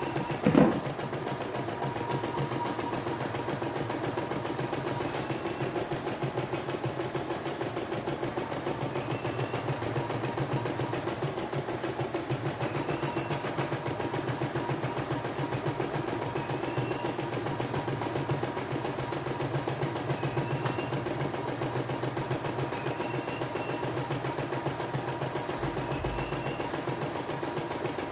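CNY E960 computerized embroidery machine stitching a design: the needle runs in a fast, even, steady rhythm as the embroidery hoop is moved under it. A brief louder sound about half a second in.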